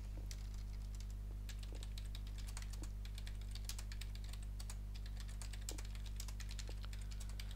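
Typing on a computer keyboard: a quick, irregular run of keystrokes over a steady low hum.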